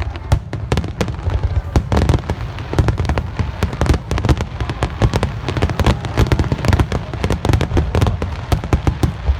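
Aerial fireworks shells bursting in rapid succession, a dense run of sharp bangs and crackles, several a second, over a deep continuous rumble.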